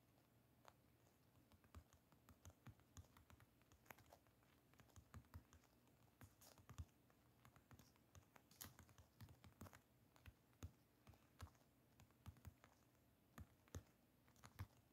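Faint, irregular taps of typing on a smartphone's on-screen keyboard, several quick keystrokes a second with short pauses between words.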